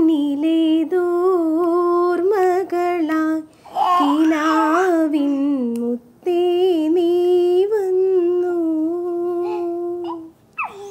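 A woman's voice humming a simple tune unaccompanied, in long held notes over three phrases with short breaks between them. A short falling vocal sound comes near the end.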